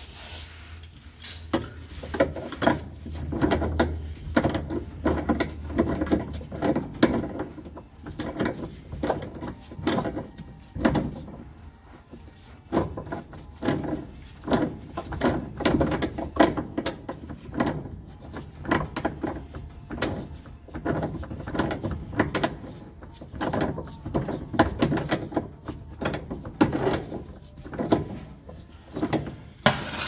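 Irregular runs of metallic clicks, knocks and rattles from a wrench being worked on the drive pulley nut of a GE washer, the pulley shifting as it is turned. A low hum underneath fades out about seven seconds in.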